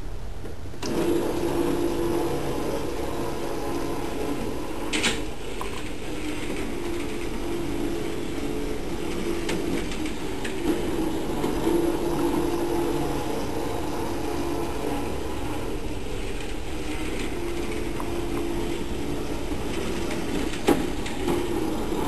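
LEGO monorail train's small electric motor running as the train drives along the plastic monorail track: a steady whirring hum that starts about a second in, with two sharp clicks, one about five seconds in and one near the end.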